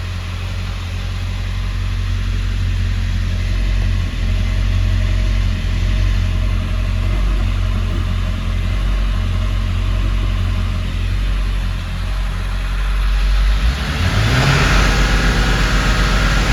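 Ford 7.3 L Powerstroke V8 turbo-diesel idling steadily, then revved up about 14 seconds in, with its intake and turbo noise rising. The engine is being checked for low power caused by a collapsed, air-starving air filter.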